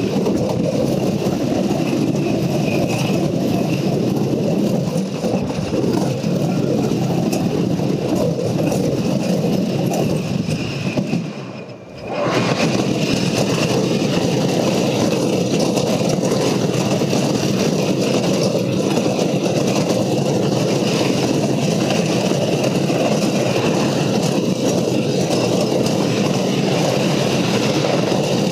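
Wooden roller coaster's Timberliner train running along its track: a steady, loud rumble and rush of noise. It eases off for about a second near the middle, then picks up again.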